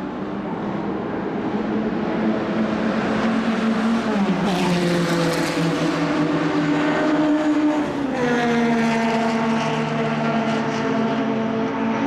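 1960s racing car engine running hard on track. Its note shifts in pitch and steps sharply down twice, about four and eight seconds in, while it grows louder.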